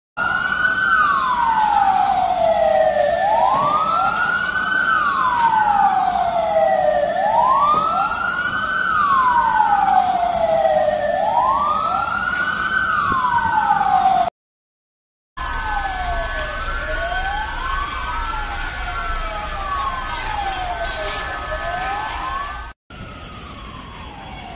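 Several emergency vehicle sirens wailing, their pitch sliding up and down and overlapping, each cycle about three to four seconds. After a silent break of about a second partway through, a faster up-and-down siren continues alongside some steady tones.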